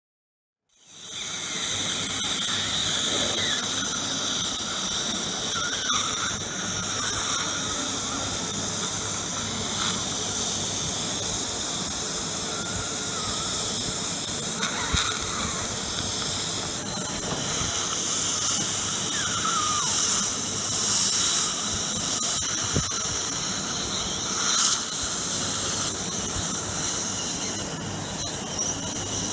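Surgical suction tip hissing steadily as it draws air and fluid from the mouth, with a few faint squeaks. Its tone shifts slightly past the middle.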